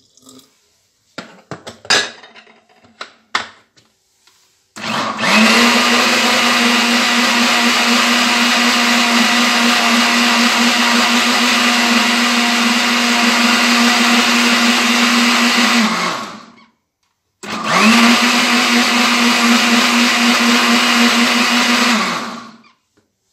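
Countertop blender blending bananas and milk into a smoothie: a few light knocks, then the motor starts about five seconds in and runs steadily for about eleven seconds. It stops for a moment, then runs again for about five seconds.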